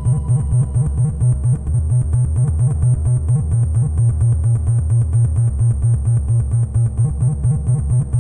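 Electronic background music with a steady, pulsing synth bass and a repeating high synth tone.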